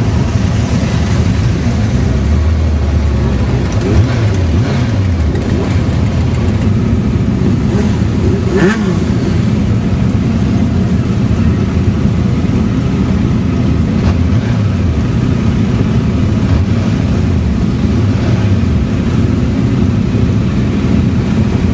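A mass of motorcycle engines running together as a large group of bikes rides slowly past. Individual bikes rev up and pass close by, their engine notes rising and falling over the steady rumble of the rest.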